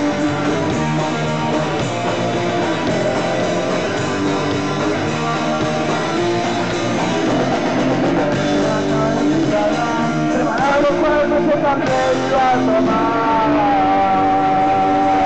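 A live punk rock band playing, with electric guitar to the fore. In the last few seconds a higher line bends up and down and then holds a long note.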